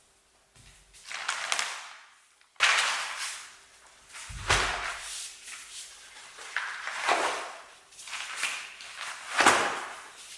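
Repeated rustling and scraping from something being handled, in strokes that swell and fade about every one and a half seconds, with a sudden break about two and a half seconds in.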